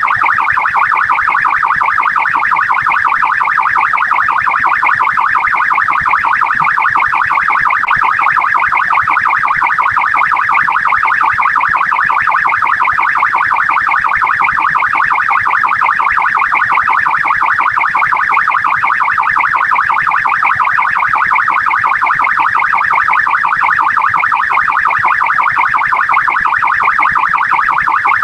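Australian police car siren sounding on a responding car, its tone cycling rapidly up and down several times a second at an even, loud level.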